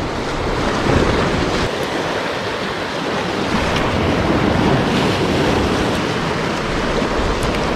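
Sea waves surging and washing against the shore, with wind on the microphone.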